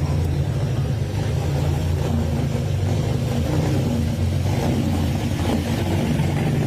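A motor vehicle engine running steadily, a constant low hum.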